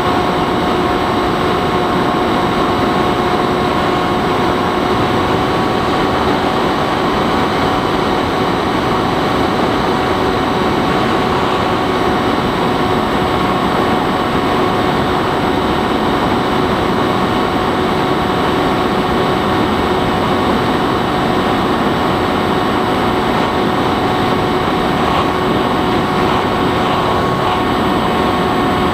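Bixler 3 RC plane's electric motor and pusher propeller running at steady cruise, a constant whine over a loud, even rush of air.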